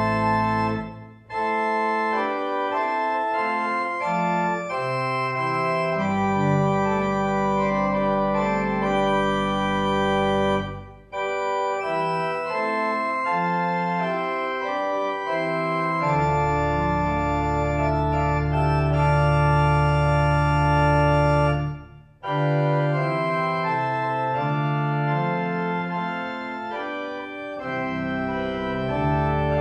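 Organ music: sustained chords over long held bass notes, played in phrases with brief breaks between them.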